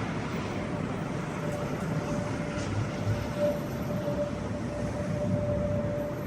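Continuous low rumbling from an unidentified source in the sky. About a second and a half in, a thin steady tone like a finger rubbed on a glass comes in over it and wavers on and off.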